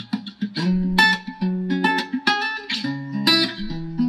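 Guitar music with a bass line, plucked and strummed chords in a steady rhythm, played through a Zebronics Zeb-Action portable Bluetooth speaker as a sound-quality test.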